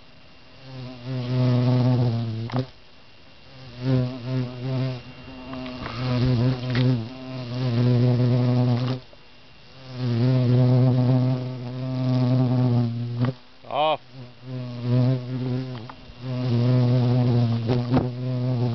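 A large bee buzzing loudly right at the microphone, a low hum that wavers in pitch as it darts about, fading and coming back in several close passes.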